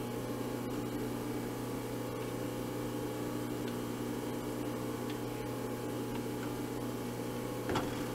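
Milling machine running steadily in back gear with a slow spindle, starting a long extended tap into a hole in a part held in the vise; a short click near the end.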